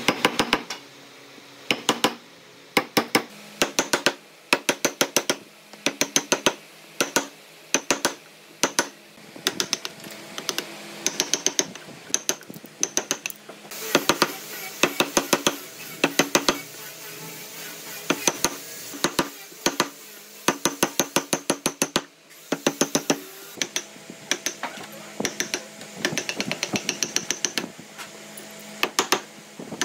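A steel wood chisel is struck in quick bursts of sharp taps as it chops waste out between saw kerfs in a pine block, with wood chips cracking away. The bursts repeat every second or so.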